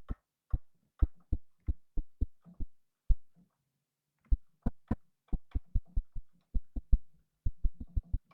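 Synthesized keypress clicks from a short filtered-noise patch, triggered again and again in an uneven rhythm. Each is a brief low thump with a thin click on top. There is a pause of about a second near the middle.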